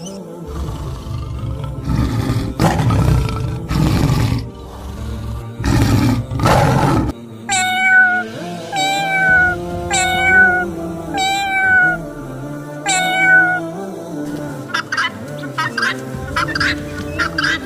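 A cat meowing five times, about a second apart, over background music. Two loud rough bursts of noise come before the meows, and a quick run of short chattering calls follows near the end.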